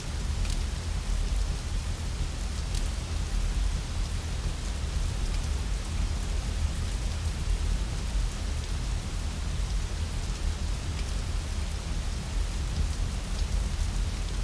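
Steady rain falling, an even hiss over a deep continuous low rumble, with a few faint sharp ticks scattered through it.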